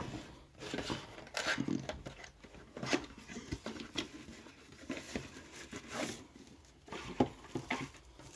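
Packaging being handled during an unboxing: irregular crinkling and rustling with scattered clicks and small knocks.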